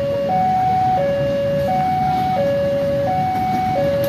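Railway level-crossing warning alarm sounding its repeating two-tone hi-lo signal, about three-quarters of a second per tone, as a train approaches the crossing. Underneath is the low running of a CC 201 diesel locomotive.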